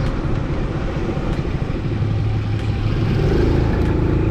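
Suzuki Smash 115 motorcycle's single-cylinder four-stroke engine running while riding, with wind and road rush. The low engine hum grows steadier and a little louder about two seconds in.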